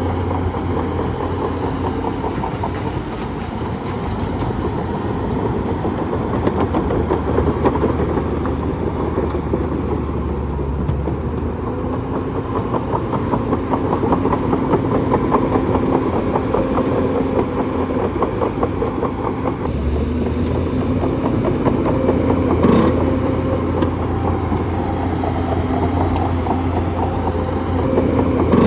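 Heavy machine's engine running steadily, with one sharp metallic knock about 23 seconds in.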